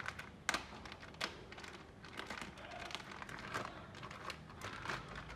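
Irregular sharp clicks, taps and light rattles of parts and tools being handled by hand, with a faint rustle between them.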